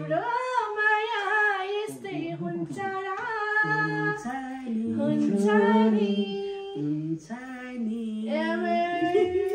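A woman singing a slow Nepali love song with long held, wavering notes, a lower voice singing along at times.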